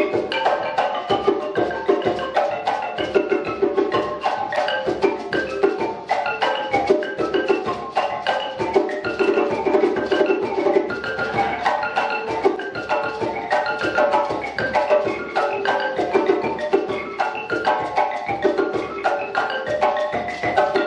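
Live jazz band with drum kit and djembe playing a busy, up-tempo percussive groove, with a stream of quick pitched notes over the drums.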